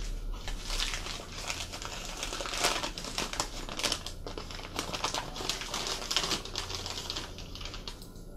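Newspaper crinkling and crackling as it is unwrapped by hand from a small diecast model: a dense, irregular run of crackles with a few louder ones.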